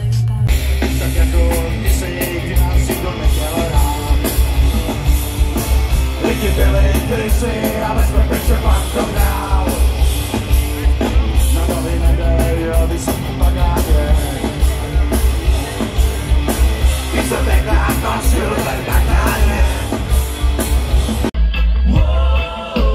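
Loud rock/punk music: a band playing with driving drums, heavy bass and shouted singing. About three-quarters of the way through, the music cuts abruptly to a different sung passage with less treble.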